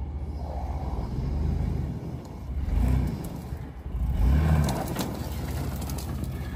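Off-road 4x4 truck's engine running at low revs, swelling a few times as the throttle is worked over a rough trail, with a few light knocks and rattles about two-thirds of the way through.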